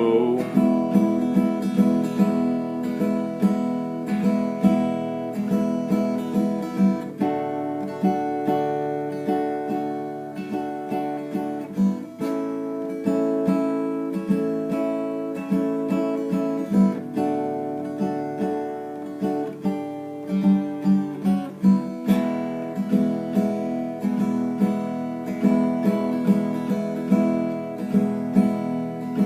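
Acoustic guitar strummed in a steady rhythm, playing an instrumental break between sung verses, the chord changing every few seconds.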